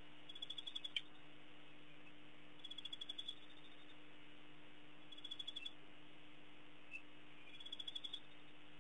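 A small animal calling: four short, faint rattling trills of rapid clicks, one about every two and a half seconds, each growing louder toward its end, over a steady low electrical hum.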